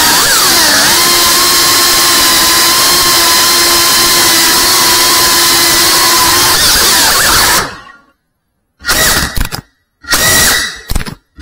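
Small FPV racing quadcopter's brushless motors whining at high speed. The pitch dips and recovers with the throttle, then holds level for several seconds. The sound stops abruptly about eight seconds in, followed by two short bursts of motor whine.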